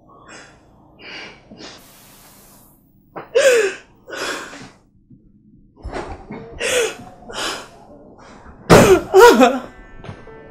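A woman crying in distress: sharp gasping breaths and short sobbing wails, the loudest cries coming about nine seconds in.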